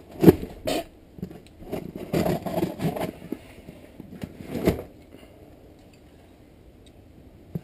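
Blunt scissors scraping, snipping and clicking as they work at a box's packaging. The scrapes come in irregular bursts over the first five seconds, loudest just after the start and again near the five-second mark.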